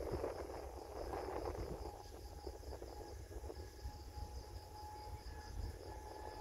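Crickets chirping steadily, about four high chirps a second, over a low rumble and faint steady hum of a distant airliner's jet engines. A louder rushing noise swells in the first couple of seconds.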